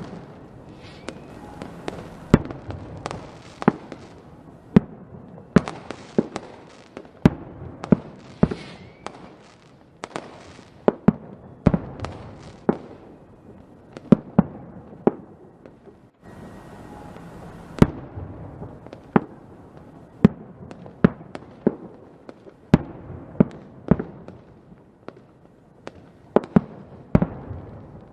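Fireworks going off: a string of sharp bangs and pops, roughly one or two a second at irregular spacing, over a crackling hiss. There is a brief break about halfway before the bangs resume.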